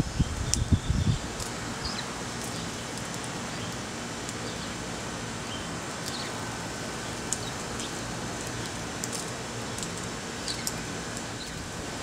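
Sparrows chirping now and then, short high notes scattered over a steady background hiss. A few loud low thumps come in the first second.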